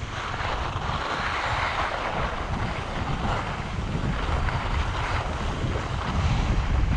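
Wind buffeting a GoPro's microphone while skiing downhill, with the steady hiss of skis sliding on snow. The rush grows a little louder near the end.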